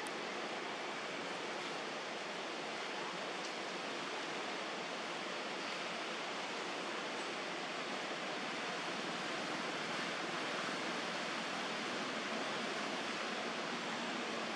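Steady, even rushing noise of outdoor ambience with no calls or distinct events.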